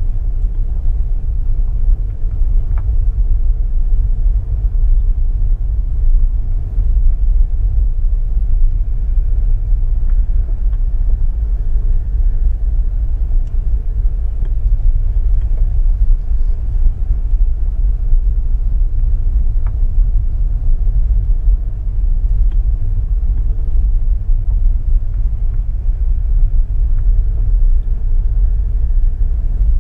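Road noise of a car driving, heard from inside: a steady low rumble with a faint engine hum and a few small clicks here and there.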